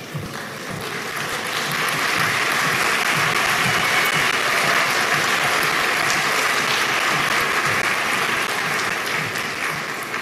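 Audience applauding: a dense, steady clapping that builds over the first couple of seconds and eases off near the end.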